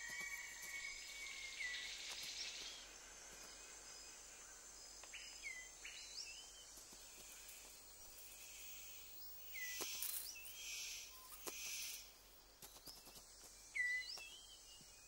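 Faint rainforest ambience: a steady insect hiss with short, scattered chirping bird calls. Three brief rasping bursts come a little past the middle.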